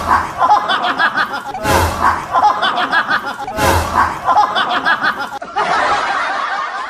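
Laughter in rapid choppy bursts, with a short loud outburst about every two seconds.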